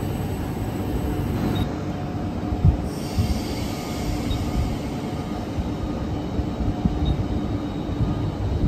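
Narrow-gauge train running on the rails with a steady rumble, faint high wheel squeal and a sharp knock a little under three seconds in.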